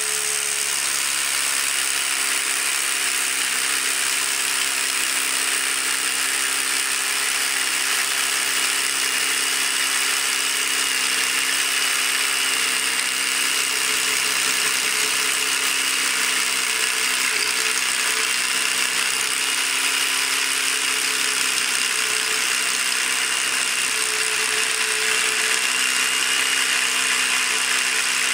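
Cordless DeWalt DCH263B electro-pneumatic SDS-Plus rotary hammer drilling steadily into concrete with a 3/4-inch bit, the hammering and motor whine continuing without a pause.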